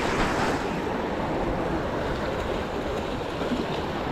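Sea waves washing and splashing over the rocks of a jetty, a steady rush of surf.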